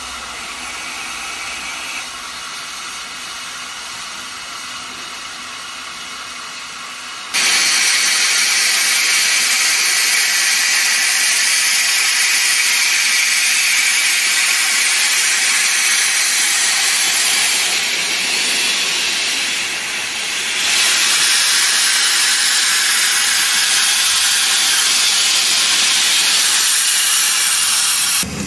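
Steam hissing out of an 1892 Manning Wardle steam locomotive. A moderate steady hiss turns suddenly into a loud, steady blast of venting steam about seven seconds in. The blast eases briefly about two-thirds of the way through and cuts off sharply near the end.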